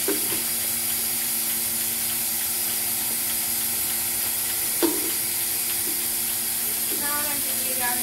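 Goat milking machine's vacuum system running: a steady hiss over a low, even hum. Two brief knocks break in, the louder one about five seconds in, and a short pitched call sounds near the end.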